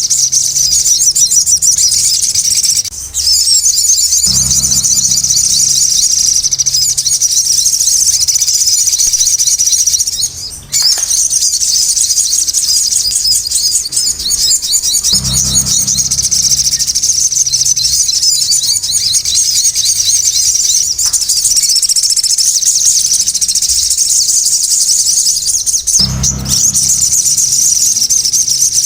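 Sogon songbird singing nonstop in a loud, busy stream of rapid high chirps and trills, with brief gaps about 3, 10 and 26 seconds in.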